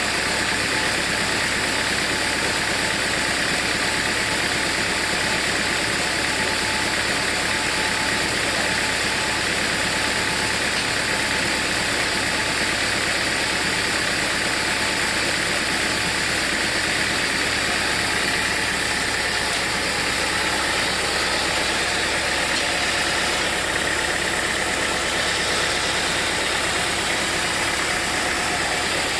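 Sawmill machinery running steadily, a constant mechanical drone and hiss without pauses.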